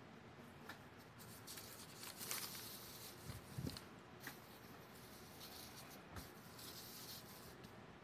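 Faint rustling and swishing of a sheet of calligraphy paper as a hand passes over it and an ink brush strokes across it, in short bursts, with two soft thumps about halfway and three-quarters in.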